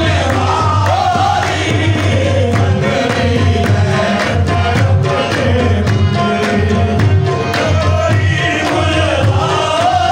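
Qawwali: a group of voices singing a Sufi devotional song over a steady percussion beat with sharp, regular strikes.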